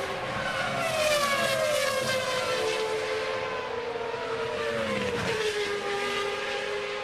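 Formula One car engines running at high pitch, their notes sliding slowly downward as the cars slow.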